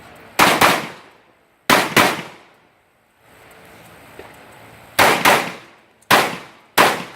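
Rifle fire in four quick pairs of shots, double taps, eight shots in all, each with a short echoing tail.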